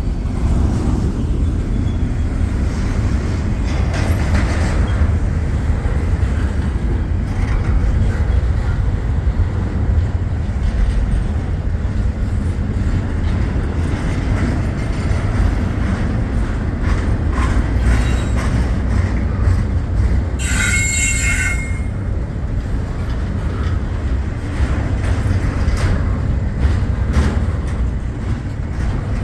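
Norfolk Southern intermodal freight train cars rolling past on the rails: a steady, loud rumble of wheels with scattered clicks. About two-thirds of the way through there is a brief high squeal.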